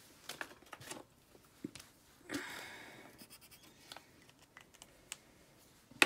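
Faint desk handling: scattered light clicks and taps, and a short scratchy stroke about two seconds in, as a felt-tip marker crosses a figure off a paper collector's checklist.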